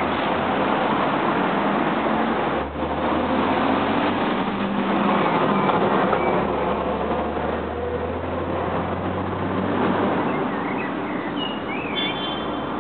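Steady city road traffic noise, with a low engine drone from a passing vehicle through the middle and a few short high chirps near the end.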